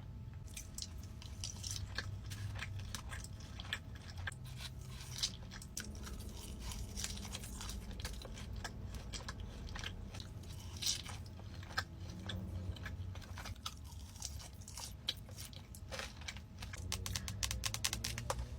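Close-up eating sounds: bites and chewing, full of irregular sharp crunchy clicks.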